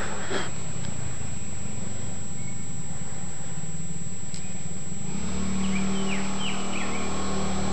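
Coolster 110 ATV's small four-stroke engine running steadily, growing louder and deeper about five seconds in.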